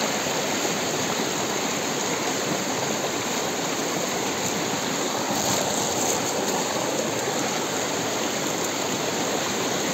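Fast-flowing river water rushing steadily, a dense even noise with no breaks.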